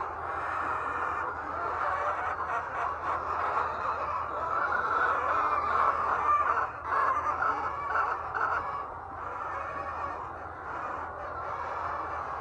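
A flock of laying hens clucking and calling over one another without a break, with a low steady hum underneath.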